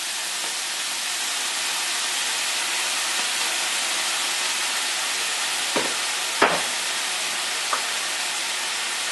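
Diced vegetables sizzling steadily in a hot skillet with a splash of soy sauce. About six and seven seconds in come a few small knocks.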